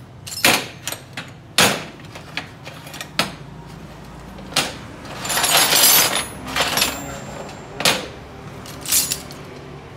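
Steel wrenches and hand tools clanking as they are set down one after another on a workshop shelf, with a longer rattle of tools being shuffled together about five to six seconds in.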